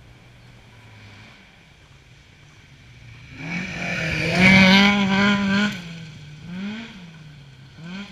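Rally car on a gravel stage approaching and passing close at speed. Its engine is loud for about two seconds as it goes by, then revs rise twice in quick sweeps as it accelerates away up the gears.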